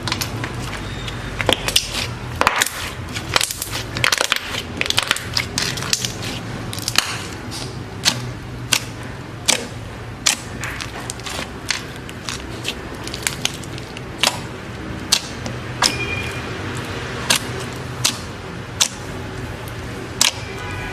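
Slime being squeezed and stretched by hand, giving many sharp, irregular clicks and pops, a few a second, over a low steady hum.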